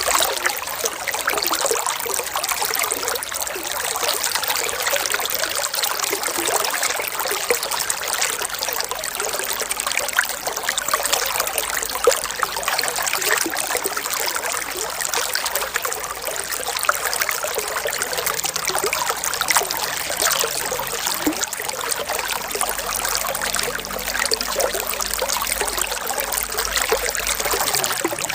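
Water trickling and flowing steadily, an even, unbroken rush with no pauses.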